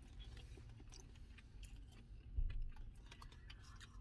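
Faint crinkling and clicking of aluminum foil as a taco is handled and lifted from its wrapping, with one soft low bump about two and a half seconds in.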